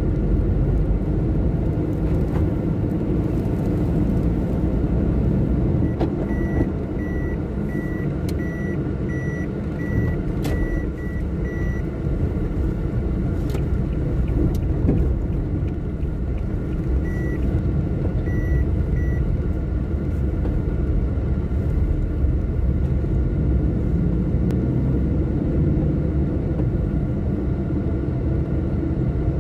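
Steady engine and road rumble of a car being driven, heard from inside the cabin. A high electronic beep repeats about twice a second for some six seconds, starting about six seconds in, and sounds three more times a little later.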